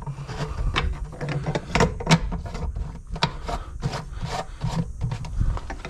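Irregular clicks, taps and scraping, two or three a second, as a stainless worm-gear hose clamp and plastic pool-filter plumbing are handled and fitted, over a low steady hum.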